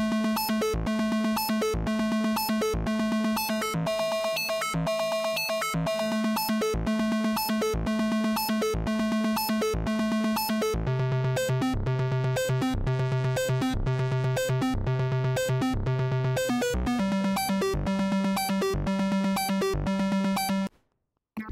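Virsyn Addictive Synth wavetable synthesizer app on the iPad, running its 'Keep your ears' arpeggio preset: a fast, evenly repeating synth note sequence over a pulsing bass note. The bass note drops lower about halfway through and rises again later. Near the end the sound cuts out briefly as the preset is changed.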